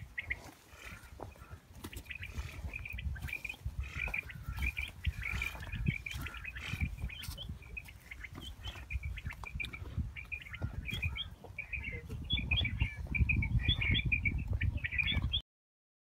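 Quail calling: short, high chirping notes repeated in quick clusters throughout. A low rumbling noise runs underneath and is strongest near the end.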